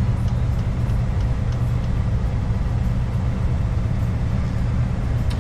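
Diesel truck engine running with a steady low drone as the road train pulls out.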